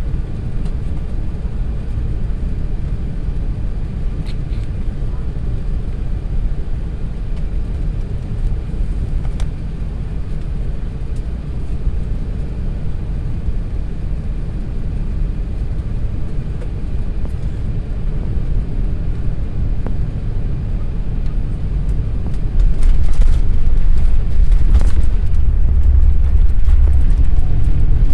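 Airbus A380 landing: a steady low rumble that grows slowly, then jumps louder about five seconds before the end with a couple of knocks, as the airliner touches down and rolls out on the runway.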